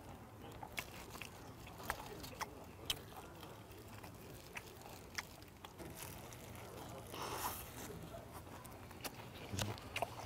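Close-up chewing and biting of soy-glazed fried chicken, with small sharp crunchy clicks scattered throughout and a brief rustling noise about seven seconds in.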